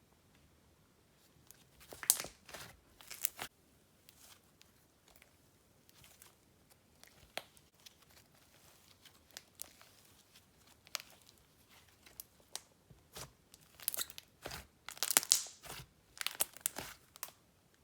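Hands squishing and stretching slime, giving scattered sticky crackles and pops that come thicker over the last few seconds.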